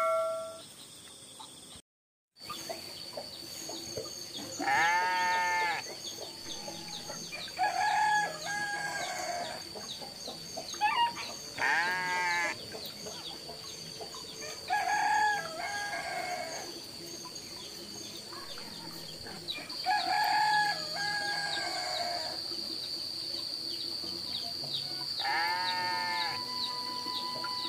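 Roosters crowing and goats bleating in turns: about six calls a few seconds apart. Under them runs a steady high tone, stronger in the second half.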